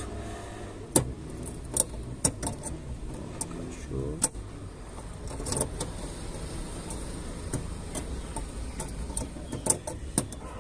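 Scattered sharp plastic clicks and rattles of a car headlamp bulb and its wire connector being worked into the socket behind the headlight, over a steady low hum.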